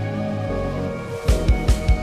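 Background music: sustained synth-like tones, then about a second in a steady kick-drum beat comes in, about three beats a second.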